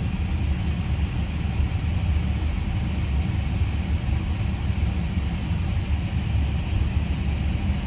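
Steady cabin noise inside a 2026 Tesla Model Y driving itself slowly across a parking lot: a low rumble of the moving car with the climate-control blower hissing over it.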